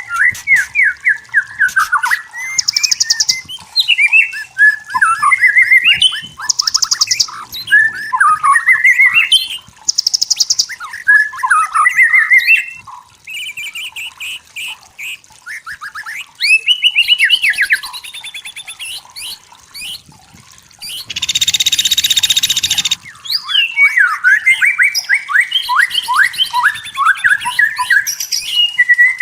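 White-rumped shama singing: rapid, varied phrases of whistled and chattering notes that glide quickly up and down, separated by short pauses. About three-quarters of the way through comes a harsh rasping burst of about two seconds.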